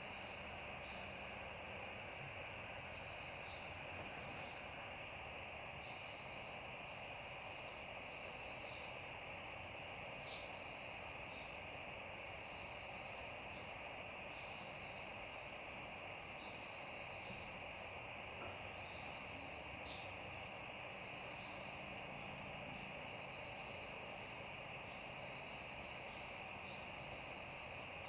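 Night chorus of crickets and other insects: a continuous high trill with quick repeating chirps over it and an even low hiss beneath, unchanging throughout.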